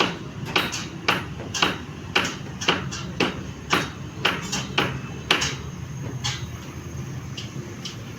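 Hammer blows ringing on construction formwork, about two strikes a second at an uneven pace, thinning to a few scattered blows after about five seconds, over a steady low hum.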